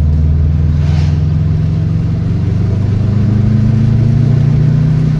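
Subaru WRX's turbocharged 2.0-litre flat-four (EJ205) heard from inside the cabin, pulling under acceleration with its note rising steadily. Near the end the note drops off sharply, as at a gear change.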